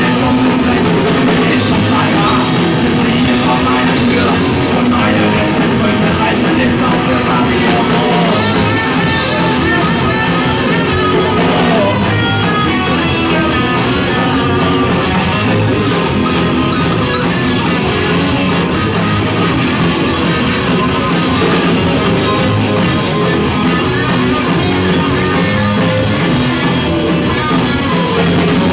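Loud live rock band playing: electric guitars and bass over a drum kit with cymbal hits.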